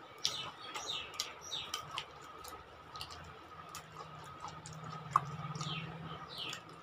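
Small birds chirping in short falling chirps, a flurry in the first two seconds and again near the end, over scattered soft clicks and smacks of hands mixing rice and of chewing.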